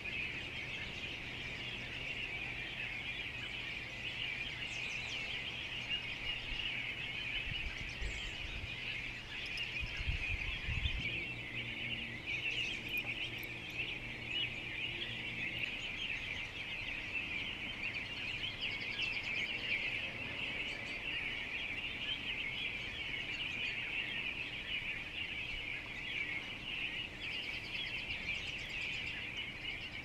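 Songbirds calling in a dense, unbroken chorus of chirps and chatter, many birds at once; the flock includes American robins.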